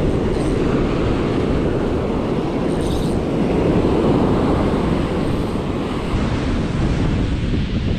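Surf breaking and washing up the sand, with wind buffeting the microphone in a steady low rush.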